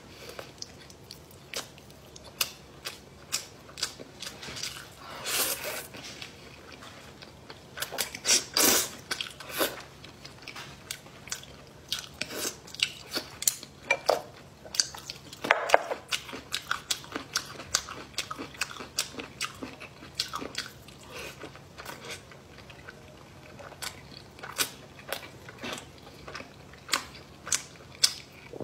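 Close-miked eating: chewing and biting with a steady run of short, wet mouth clicks and smacks, and a few louder, longer munching sounds.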